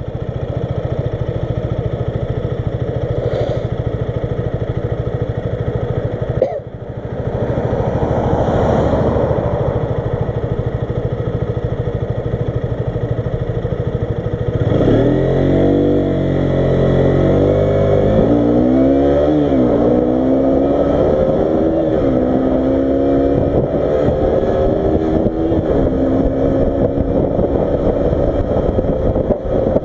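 KTM RC 125's single-cylinder engine, heard from the rider's seat. It runs steadily at first, with a brief dip about six seconds in. From about halfway it revs hard and accelerates through the gears, its pitch climbing and dropping back at each upshift.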